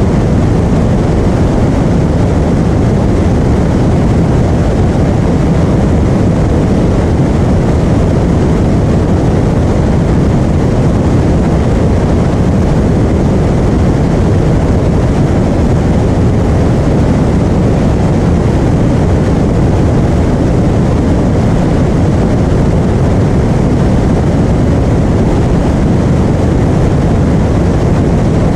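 Steady, loud drone of a Piper Arrow single-engine light aircraft's engine and propeller in flight.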